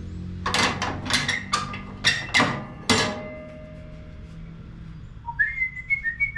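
A quick run of about eight sharp clanks and knocks, hard objects struck or set down, some of them ringing briefly. Near the end someone whistles a few short gliding notes.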